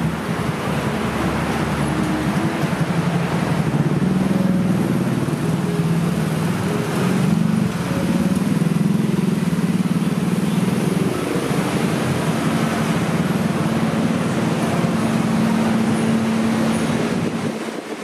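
Road traffic: cars and motorcycles running past in a steady rumble. It drops away near the end.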